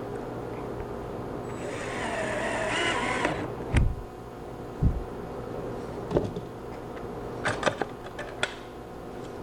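A power drill runs for about two seconds, its pitch wavering, followed by several sharp knocks and clicks.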